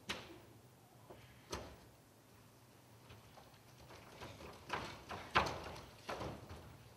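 Dancers' bare feet thudding on a stage floor: a few separate landings and steps with quiet between them, closer together in the second half.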